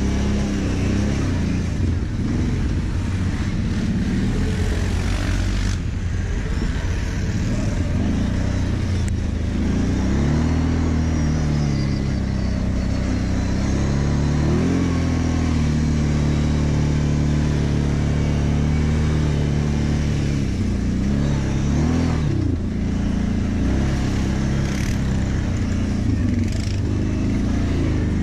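ATV engine running under the rider's throttle, its pitch rising and falling again and again as it speeds up and eases off at low speed, over a steady low rumble.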